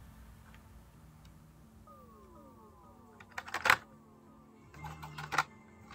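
Cardboard-and-plastic blister card of a Hot Wheels die-cast car being picked up and handled: two short bursts of crackling clicks, one about three and a half seconds in and the other about five seconds in, over faint electronic background music.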